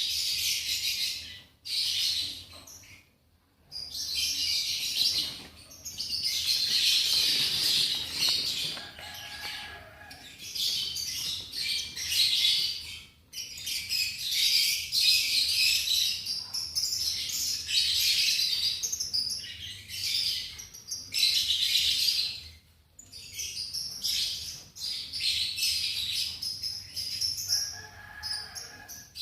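Lovebirds chattering: dense, shrill twittering in long bursts with brief pauses, the loudest stretches coming back every few seconds.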